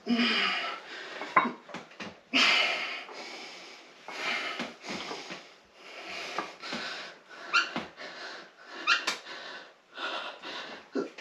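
A man breathing hard through a set of weighted leg exercise: forceful, noisy exhalations about once a second, with a few short, sharper puffs.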